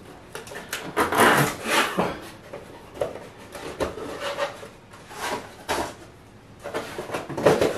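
Hands working a compression driver at the back of a wooden open-baffle speaker cabinet: several bursts of rubbing and scraping against the wood, the loudest about a second in and near the end.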